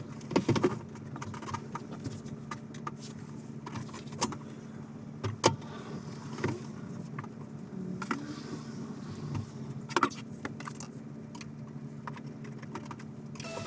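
A steady low mechanical hum with scattered sharp clicks and knocks, like objects being handled.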